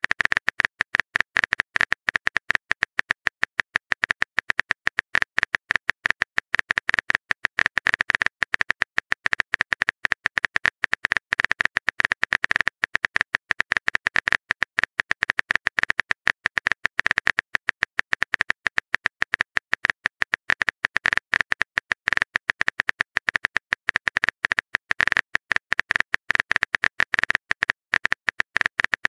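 Fast stream of phone-keyboard key clicks, one click per letter as a text message is typed, several a second without a break.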